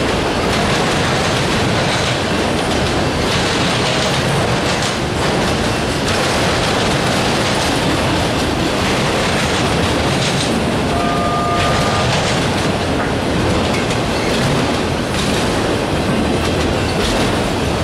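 Freight train of autorack cars rolling past close by: steady noise of steel wheels running on the rails.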